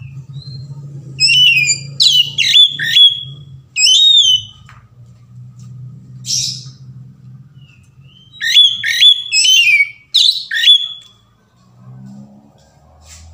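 Oriental magpie-robin (kacer) singing loud, varied whistled phrases of quick sweeping notes, in two groups: one starting about a second in, the other about eight seconds in. A low steady rumble underneath fades out in the first half.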